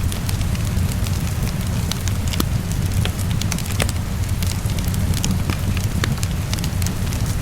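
Wood fire crackling, with frequent small irregular pops, over a steady hiss of falling rain and a low rumble.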